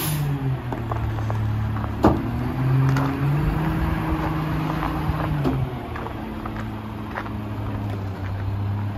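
Diesel engine of a Mack LR rear-loader garbage truck running, its pitch rising and holding for a few seconds while the cart tipper dumps a cart, then settling lower after about six seconds. A single sharp bang about two seconds in, the loudest sound, is the cart knocking against the tipper or hopper.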